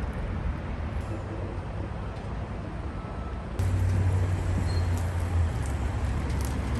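Freightliner semi truck's diesel engine running with a steady low rumble, growing louder about three and a half seconds in for a couple of seconds, with a few faint clicks.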